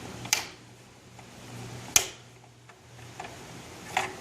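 Three sharp, short clicks and taps from handling the garage door opener's wires and plastic cover, over a faint steady low hum.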